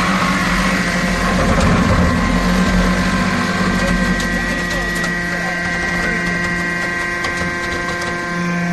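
Hydraulic scrap-metal baler running: a steady machine hum and whine with scattered clicks and rattles of metal throughout.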